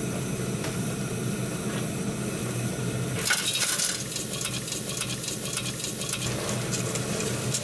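Sauce of onion and tomato simmering quietly in a steel pot over a steady low hum. About three seconds in, dry trahana granules are poured in and stirred with a wooden spoon, giving a dense patter of fine clicks that thins out over the next few seconds.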